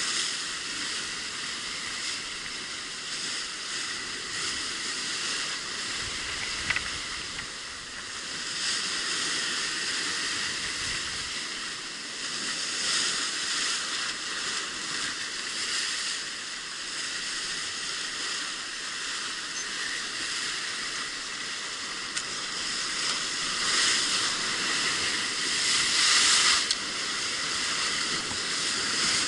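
Sea surf breaking and washing over rocks: a steady hiss of white water that swells louder several times, most strongly near the end.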